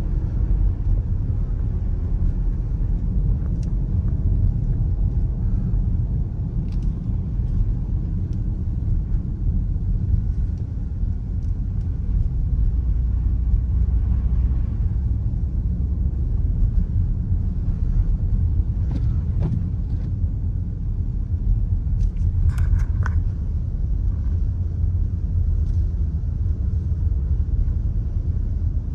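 Steady low rumble of a 2018 Dodge Durango driving on snowy streets, heard from inside the cabin: engine and road noise, with a few faint clicks about twenty-two seconds in.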